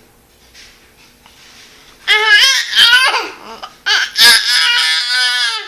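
Baby yelling: two loud, high-pitched squeals, a wavering one about two seconds in and a longer held one about four seconds in.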